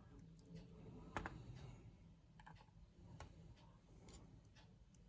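A few faint metallic clicks and ticks of small lock parts, pins and the brass cylinder, being handled during disassembly of a pin-tumbler lock. The clearest click comes about a second in.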